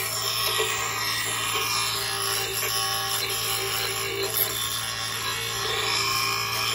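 Bench grinder running steadily while a steel garden-tool blade is held to its wheel to sharpen it: a continuous grinding noise over the motor's steady hum.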